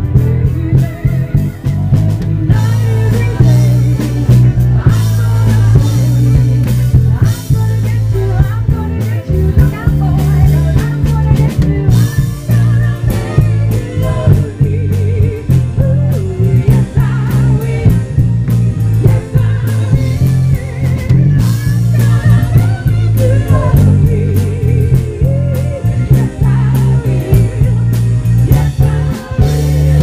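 Live Motown-style band through a nearby PA speaker: a female vocal group singing over electric bass guitar and drum kit. The bass line is the loudest part.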